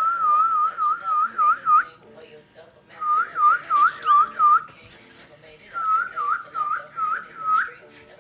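High warbling whistle in three runs of quick, evenly spaced chirps, about five a second, with short pauses between the runs.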